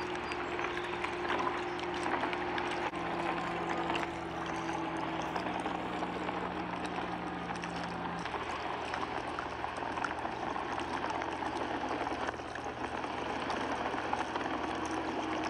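Lake water rushing and splashing along the hull of a moving boat, a steady wash of noise.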